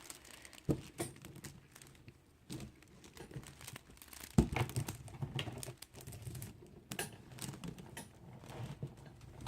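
Rustling and small clicks from a plastic pony-bead kandi hood and fabric strips being handled, with one sharper knock about four and a half seconds in.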